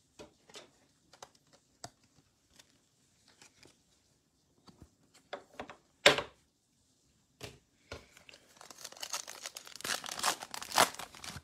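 Faint clicks of trading cards being handled, one sharp tap about six seconds in, then a foil card pack being torn open, crinkling steadily through the last few seconds.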